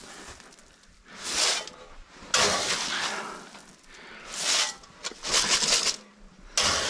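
Grain feed being scooped from a galvanized tub with a metal scoop and poured into a feed pan: about five short bursts of rattling, hissing grain.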